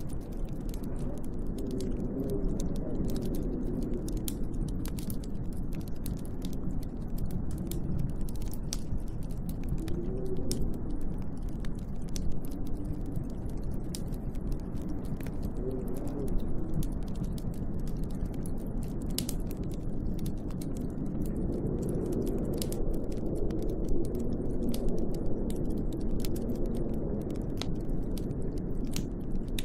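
Wood fire crackling in a fireplace, with many sharp irregular pops, over a steady snowstorm wind that rises and falls in gusts.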